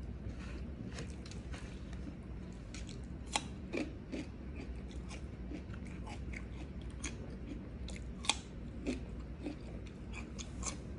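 Close-up chewing and crunchy bites of raw vegetables eaten by hand, a run of short crisp crunches with two sharper ones about three and a half and eight seconds in.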